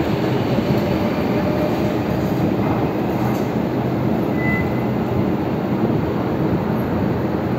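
MTR East Rail Line electric train pulling out of the station, its motors and wheels giving a steady rumble as it draws away along the platform. A brief high squeal sounds about four and a half seconds in.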